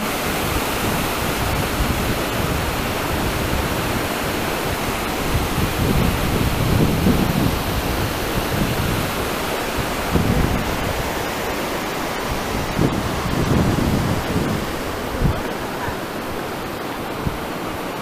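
Brúarfoss waterfall and its cascading river rushing, a steady, full-spectrum water noise, with occasional low rumbling surges.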